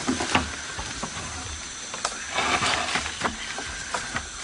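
Leaves and twigs rustling and crackling as a young Bornean orangutan gathers and works them into a nest, with several sharp snaps and a denser rustle in the middle.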